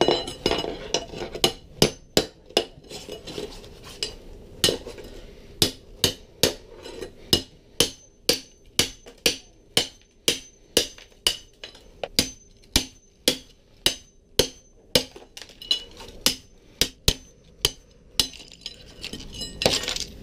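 Claw hammer striking a steel chisel driven under ceramic floor tiles, about two sharp, ringing metal blows a second, chipping the tiles up by hand without a powered tile chipper.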